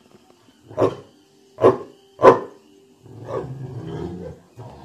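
Dogue de Bordeaux barking three times in short sharp barks, then a longer low growl that sounds like a bear.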